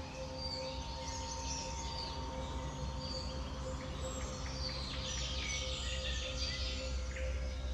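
Small birds chirping and twittering over a steady low rumble and a faint steady hum.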